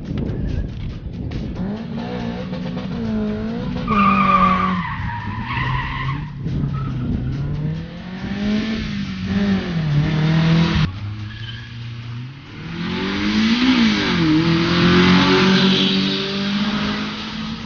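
Car engine revving up and down while the tyres squeal and skid, loudest around four to six seconds in and again from about thirteen to sixteen seconds.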